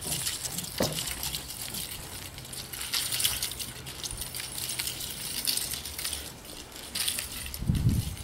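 A wooden staff swishing through the air in a run of fast swings, in irregular short swishes, with a brief low rumble near the end.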